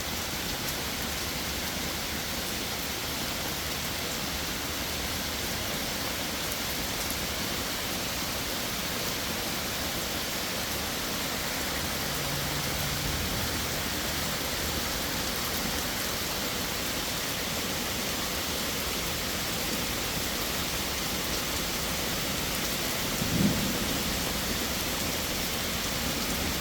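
Heavy rain pouring down in a steady hiss, mixed with the pond's waterfalls running. A short low thump sounds near the end.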